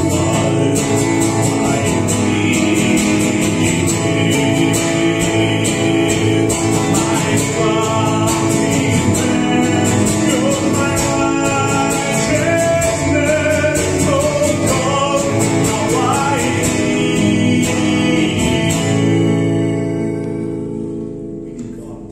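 A man sings a worship song while strumming an acoustic guitar. About nineteen seconds in the strumming stops, and the last chord rings out and fades away.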